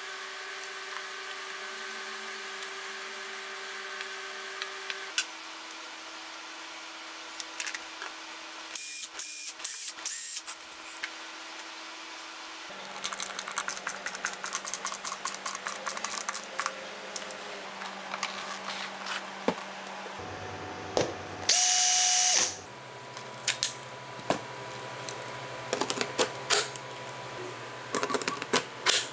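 Screws being driven through rubber feet into a wooden speaker cabinet with a small powered driver, in short whirring bursts with rapid clicking runs between them. One louder, longer burst of the driver comes about two-thirds of the way through, with taps and clicks of handling around it.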